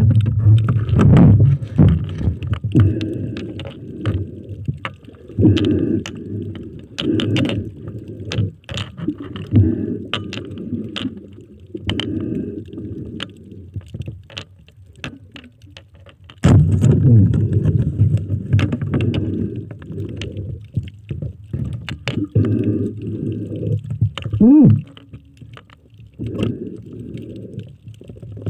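Muffled underwater noise picked up by a submerged camera: irregular low rumbling surges of water moving around the camera, with many scattered sharp clicks and knocks, and a brief whistle-like sweep near the end.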